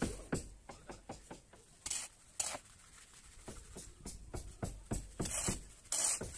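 Hoe scraping and chopping through a heap of dry sand and cement: short knocking strokes, several a second at first and sparser later, with a few brief gritty swishes.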